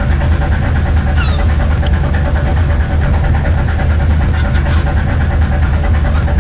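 Fishing boat engine running steadily with a deep, even hum. A short falling cry is heard about a second in.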